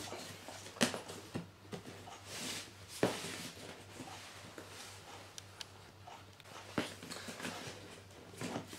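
Cardboard packaging being handled. Light knocks and clicks come at irregular moments, the sharpest about three seconds in and again near seven seconds, with soft rustling between them.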